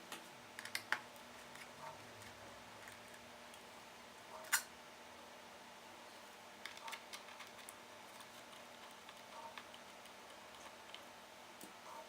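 Faint, scattered clicks and taps of hand tools and small parts being handled while a laptop is taken apart. The sharpest click comes about four and a half seconds in.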